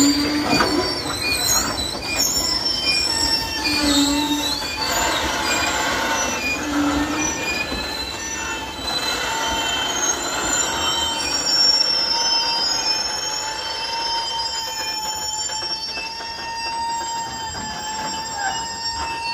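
Loaded freight gondola wagons rolling slowly past, their wheels squealing in several high ringing tones that waver and glide over the rumble of the cars. The sound eases slightly near the end as the tail of the train moves away.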